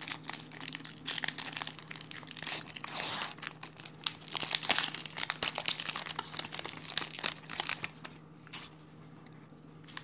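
Foil wrapper of a Yu-Gi-Oh! booster pack being crinkled and torn open by hand, a dense crackling that dies down near the end.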